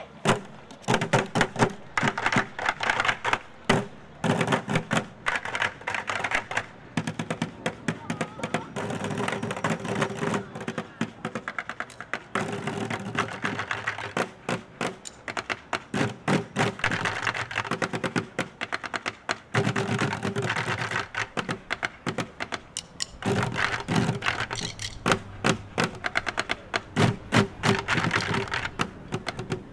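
A children's bucket band drumming with wooden drumsticks on upturned orange plastic five-gallon buckets, many sticks striking together in a fast, steady marching rhythm.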